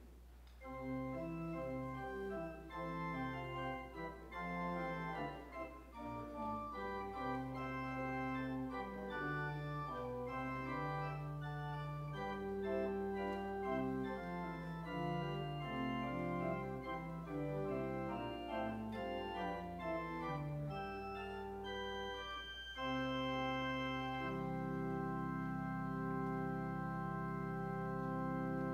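Organ playing a slow piece of held notes and chords. It starts about a second in and ends on a long sustained chord near the end.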